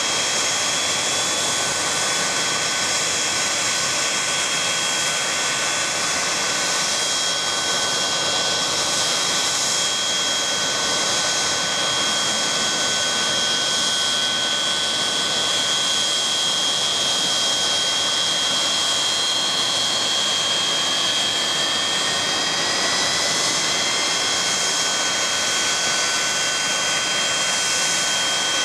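Boeing 737-200's Pratt & Whitney JT8D turbofan engines during engine start: a loud, steady jet whine with two high steady tones. From about two-thirds of the way through, a rising whine climbs in pitch as an engine spools up.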